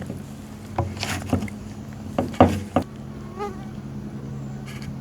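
A steady low buzzing hum, with about six sharp clicks and knocks in the first three seconds as ABS drain-pipe fittings are handled.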